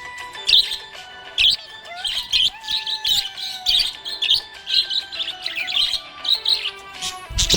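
Budgerigars chirping in quick clusters of high chirps, two or three a second, over steady background music, with a short low thump near the end.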